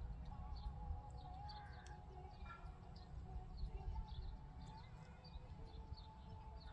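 A small bird chirping over and over in short high notes, about two to three a second, over a steady low rumble of wind on the microphone.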